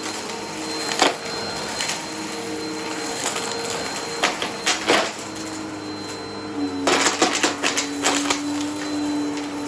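Vacuum cleaner running steadily with a motor whine, picking up crunchy test debris that crackles and clicks through the brush roll in scattered bursts. About two-thirds of the way in, the motor tone steps down a little in pitch.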